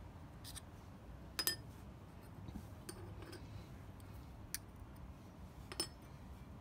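Scattered light metallic clicks and clinks from handling a steel digital caliper and bearings, about half a dozen in all. The sharpest comes about a second and a half in and another near the end, each with a brief ring.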